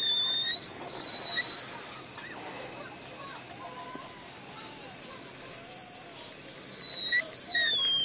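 Stainless-steel stovetop kettle whistling at the boil: one high, steady whistle that wavers slightly in pitch, grows louder in the middle and slides down in pitch near the end.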